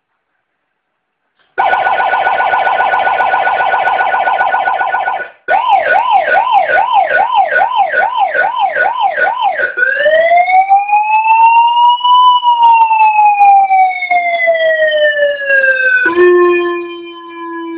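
Electronic seven-tone police escort siren cycling through its tones. After a short silence it plays a fast trill, then a quick yelp sweeping up and down about twice a second, then a slow wail that rises and falls once. Near the end it switches to a steady, quieter horn-like tone.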